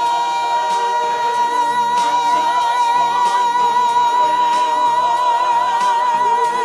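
Live gospel song: a singer holds one long high note with a wavering vibrato over the band's accompaniment, with chords changing underneath and light regular drum hits.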